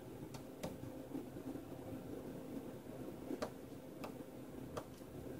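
Small sharp clicks and taps of fingers and a small tool on the phone's internal parts and tiny screws during disassembly, about five in all, the loudest about three and a half seconds in, over a steady low electrical hum.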